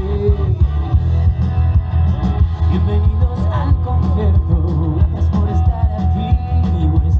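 Live band playing amplified through PA speakers: guitars over a heavy bass line and a drum beat, with a voice singing.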